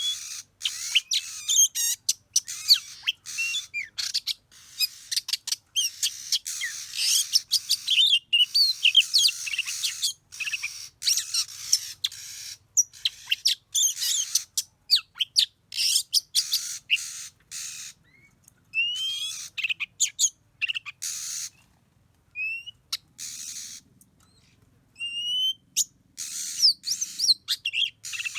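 Oriental magpie-robin song: rapid bursts of chirps and rising whistles in short phrases with brief gaps. It thins out to a few single rising whistles about two-thirds of the way through, then picks up again near the end.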